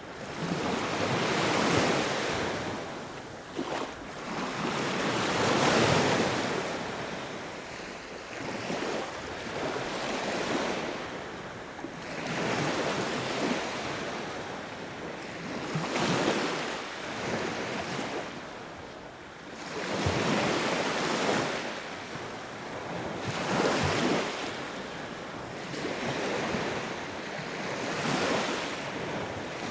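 Sea waves breaking and washing on the shore, the surf swelling and ebbing every few seconds.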